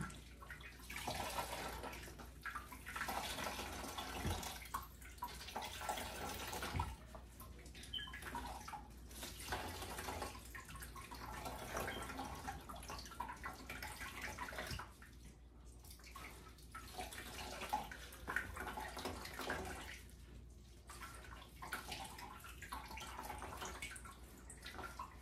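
Pineapple and cucumber juice running and dripping into a plastic jug as the pulp is squeezed by hand through a cloth strainer. It comes in surges with short quieter gaps.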